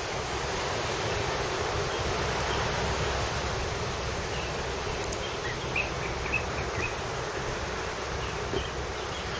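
Steady outdoor ambience of an insect chorus, with low wind rumble on the microphone and a few faint high chirps around the middle.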